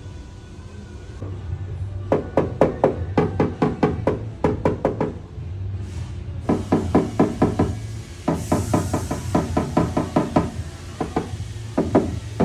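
Rapid light taps on car-body sheet metal, each with a short ring, coming in bursts of several strikes at about five a second, as in tapping down a dent during paintless dent repair.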